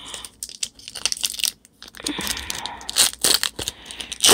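Foil wrapper of a Pokémon card booster pack being torn and crinkled by hand: a run of sharp crackles and tearing.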